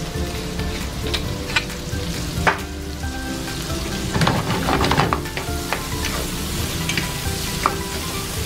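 Carrots and green beans sizzling as they fry in olive oil and butter in a nonstick pan, with scrapes and taps of a wooden spatula stirring them, busiest around the middle.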